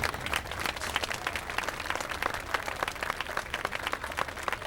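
Audience applauding, the separate claps distinct and irregular.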